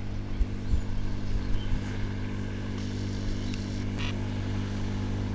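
Tohatsu 6 hp four-stroke outboard motor running at a steady speed, with a few low thumps in the first two seconds.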